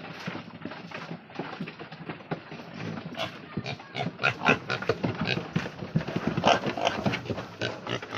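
Piglets squealing and grunting while they are unloaded and handled, with irregular knocking and clattering throughout. The loudest squeals come in the middle and later part.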